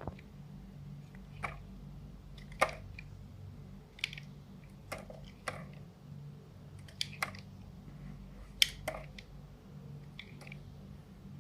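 Knife cutting into a bar of dry soap, giving sharp crisp snaps and crackles at irregular intervals, about a dozen, over a low steady hum.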